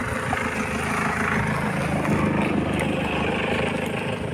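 Steady engine and road noise of motor vehicles running, with no marked change.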